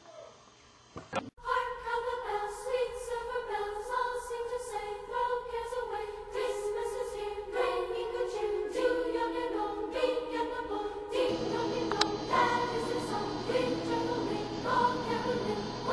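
Choir singing over music, holding long sustained chords that change every second or two; it starts abruptly about a second in after near quiet.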